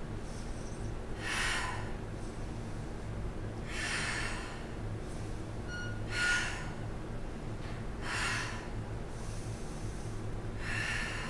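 A woman's forceful breaths during a Pilates scissor exercise, five in all, about every two and a half seconds in time with her leg switches.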